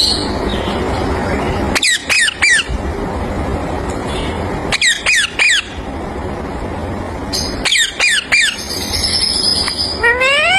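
Young rose-ringed (ringneck) parakeet squawking: three bursts of three or four short, shrill, falling calls about three seconds apart, then one rising call near the end, over a steady background hiss.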